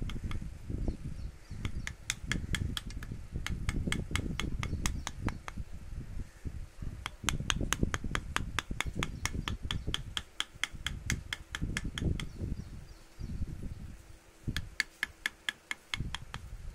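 Rapid, evenly spaced taps, about four a second, of a mallet driving a carving chisel into wood, in three runs with short pauses between them, over a low rumble.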